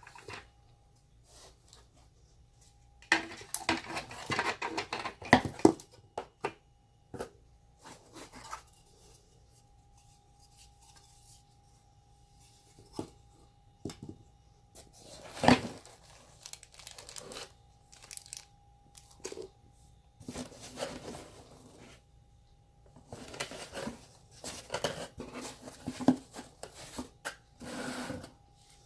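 Packaging being handled and torn open: bursts of rustling, crinkling and tearing, with scattered clicks and knocks as parts are moved about.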